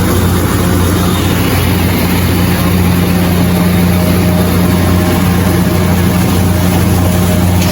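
Shin Nong rice mill machine running steadily while milling red rice: a loud, even low hum over a constant rushing noise.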